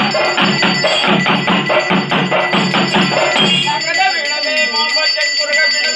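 Kerala temple festival percussion: drums beaten in a fast, even rhythm of about four strokes a second under steadily ringing bells or cymbals. The drumming stops about four seconds in, leaving the ringing and a voice.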